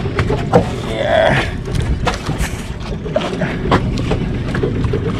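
Steady low rumble of wind and sea around a small outrigger fishing boat, with scattered knocks and slaps against the boat.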